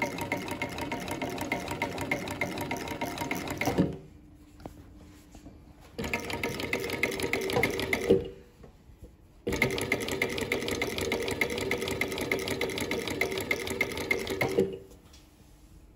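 Singer 138K industrial sewing machine running fast, stitching along the edge of a fleece blanket. It runs in three spells: it stops about four seconds in, starts again two seconds later, pauses for about a second and a half, then runs once more until about a second before the end.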